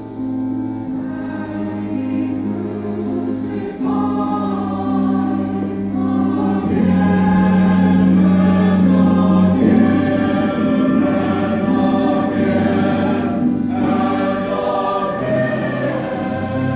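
Church choir singing a sacred cantata in sustained, held chords over a steady low instrumental bass, swelling louder in the middle.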